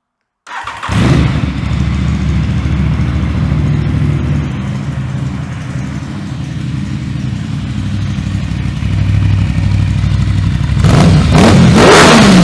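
Aprilia Tuono 660's parallel-twin engine starting for the first time through a newly fitted aftermarket Teen Top exhaust: it cranks and catches within about a second, idles steadily, then is blipped up and down a few times near the end.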